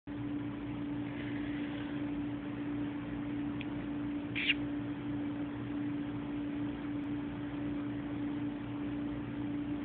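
Steady low electrical hum and hiss of a cell phone recording, with a single short, high kissing squeak from a person calling the cat about four and a half seconds in.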